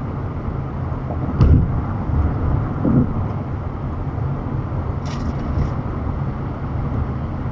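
Steady road and tyre noise inside a minivan's cabin at about 60 mph, with a low thump about a second and a half in and another at about three seconds.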